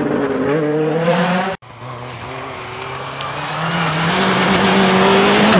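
Hyundai i20 WRC rally car's turbocharged four-cylinder accelerating hard, its pitch rising, cut off suddenly about a second and a half in. A Toyota Celica rally car then approaches on loose gravel, its engine getting steadily louder with a growing hiss of tyres and stones.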